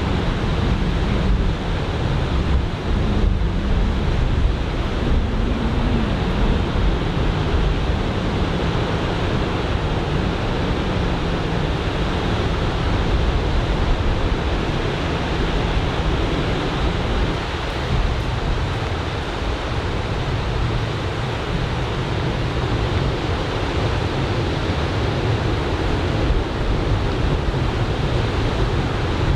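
Ocean surf from a typhoon swell, breaking and washing in a steady noisy rush, with wind buffeting the microphone.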